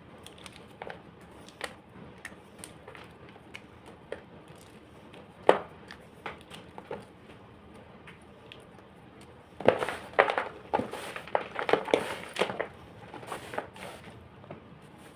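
Homemade gym chalk being crushed: scattered small crackles, one sharp snap about five seconds in, then a dense run of loud crunches and crumbling for a few seconds near the end.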